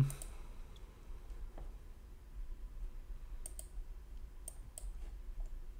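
A few faint, scattered computer mouse clicks over a quiet room background, some of them coming in quick pairs.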